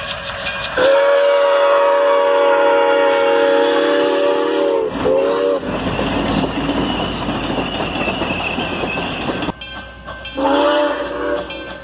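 A passenger train's chime horn sounds one long blast of about four seconds and a short one, then the train rumbles and clatters past on the rails. Near the end the horn sounds again over the regular ringing of a grade-crossing bell.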